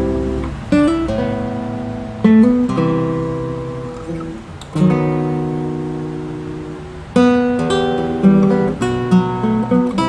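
Gotar G4s nylon-string classical guitar with a solid spruce top, played fingerstyle: plucked chords struck roughly every two seconds and left to ring and fade, then a quicker run of notes in the last few seconds.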